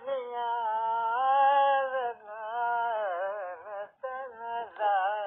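An elderly man singing a melodic line with gliding, ornamented pitch and a wavering shake in places. It comes in a few phrases, with short breaks about two and four seconds in.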